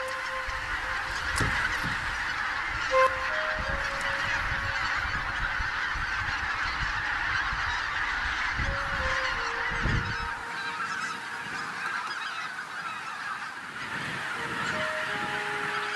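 A huge flock of wild geese resting on the lake, honking and calling all at once in a dense, unbroken chorus.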